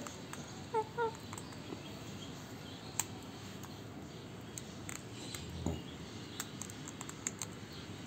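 Alexandrine parakeet eating guava: two short soft calls about a second in, then scattered faint clicks as it chews with its beak.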